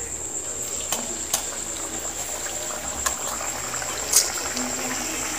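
Hot oil sizzling steadily in a kadhai as puris fry. A few sharp clicks cut through it, the loudest about four seconds in.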